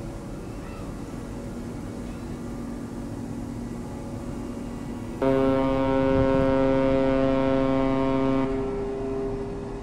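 Ship's horn sounding one long blast of about three seconds, starting abruptly a little past halfway and then fading, over a steady low hum.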